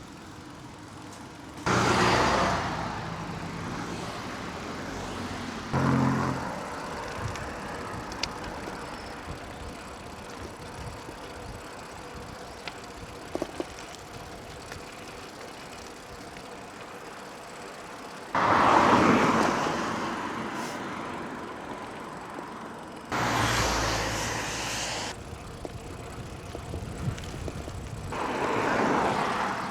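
Road traffic: motor vehicles going by five times, each coming up suddenly and fading over a second or two, over steady road noise.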